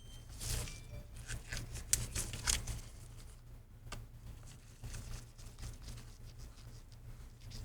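Light clicks and scraping of small tools and parts being handled on an opened laptop, busiest in the first three seconds and then sparse, over a low steady hum.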